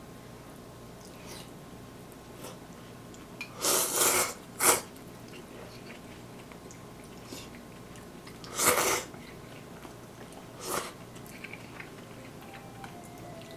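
Eating noises: a few short, noisy slurps of noodles, the loudest a few seconds in and again about two-thirds through, over a faint steady background.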